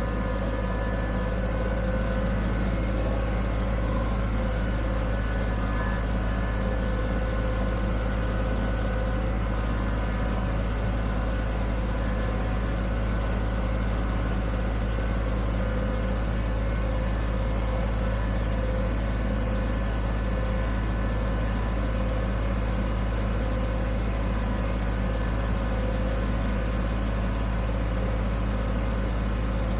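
Kubota BX25D sub-compact tractor's three-cylinder diesel engine running steadily while the tractor pushes snow with a loader-mounted plow.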